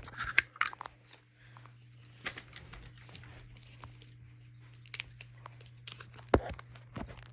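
Handling noise close to the microphone as the camera is moved onto another tripod: scattered clicks and knocks with some crinkling, over a steady low hum.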